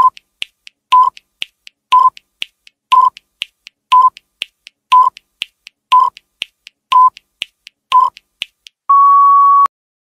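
Countdown timer sound effect: nine short electronic beeps, one a second, with a fainter tick between each, ending in one longer beep as the count reaches zero.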